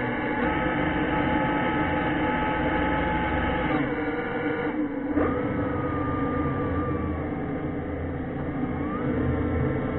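Electric thruster motors of an underwater ROV whining over a low hum, with the pitch gliding up about five seconds in and again near the end as thrust changes.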